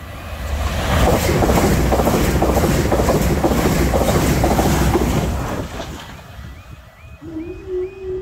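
Two coupled Class 387 electric multiple units passing at speed: a loud rush of wheels on rail with rapid rhythmic clatter for about five seconds, then fading away. The crossing's quiet alarm chirps about two to three times a second around the pass, and about seven seconds in a steady hum starts as the half barriers begin to rise.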